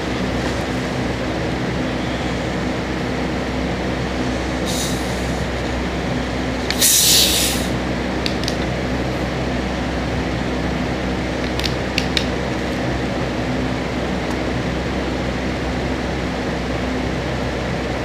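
Cap of a two-liter plastic soda bottle twisted open, with a short hiss of escaping carbonation about seven seconds in, followed by a few small clicks. A steady mechanical hum runs underneath.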